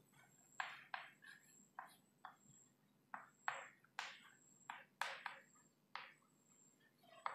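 Chalk writing on a blackboard: a dozen or so short, faint scratches and taps at an uneven pace as words are written out.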